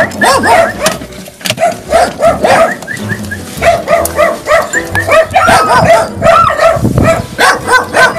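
A dog barking rapidly and over and over, several short barks a second, with a brief pause about a second in.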